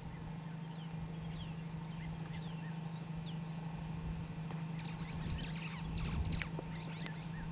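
Superb starling calling: a few faint high chirps, then a quick run of chattering chirps and whistles about five seconds in, over a steady low hum.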